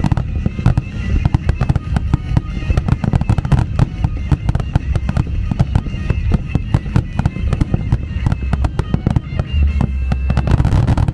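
Fireworks display: a rapid, unbroken barrage of aerial shells bursting, many sharp reports a second over deep booms.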